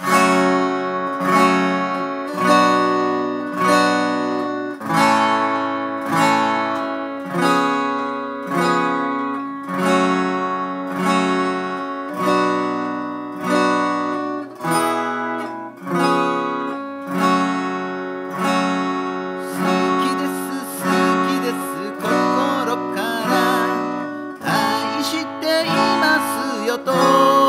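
Gibson J-45 acoustic guitar, capoed, strummed with a pick in a steady rhythm through an Em–Am–G chord progression. A singing voice comes in over the guitar about twenty seconds in.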